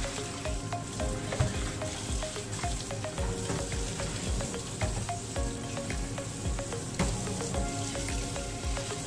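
Steady frying sizzle from a hot carbon steel skillet, with background music carrying a steady beat.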